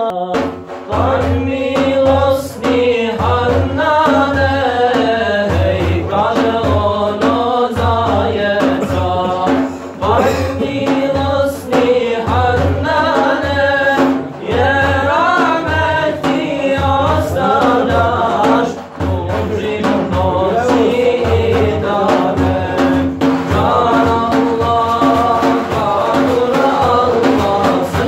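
Men's voices singing an ilahija, a Bosnian Islamic hymn, over the steady beat of a frame drum (def).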